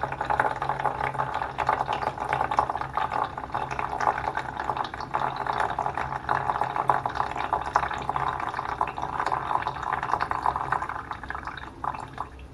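Water draining out through the stem of a 3D-printed Pythagoras cup in a thin stream and splashing into water in a plastic bucket. It trickles steadily, then tapers off to a few drips near the end as the cup runs empty.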